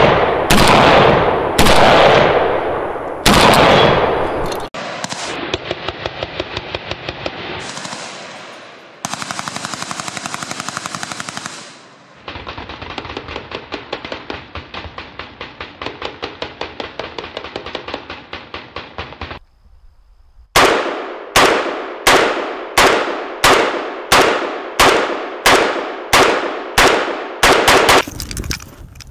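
AKS-74U carbines firing 5.45×39mm: a few loud single shots with echo, then long full-automatic bursts. After a short pause comes a steady string of about a dozen rapid single shots, each ringing out, and quieter shots near the end.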